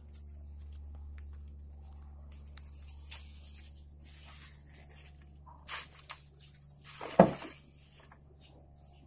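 Coconut palm leaflets being stripped from their midribs by hand and knife for a tingting broom: scattered rustling, tearing and scraping of the leaves. One sharp click about seven seconds in, over a steady low hum.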